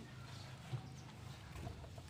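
Faint clucking of chickens over a low steady hum, with one short sharper sound about three-quarters of a second in.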